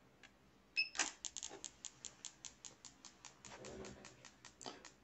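A short electronic beep as the signal generator's output is switched on, then an ignition coil driven by a TCI box firing at a simulated 300 rpm. It gives quiet, sharp ticks that repeat evenly about five times a second.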